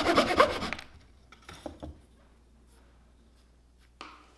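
A fine-toothed handsaw cutting the end off a walnut carving in quick back-and-forth strokes, stopping under a second in as the cut goes through. A few faint clicks follow, then a soft knock near the end.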